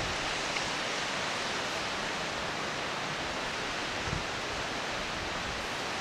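Steady, even rushing of water from the rain-swollen waterfalls in the ravine, a continuous hiss without rhythm. A brief gust of wind hits the microphone about four seconds in.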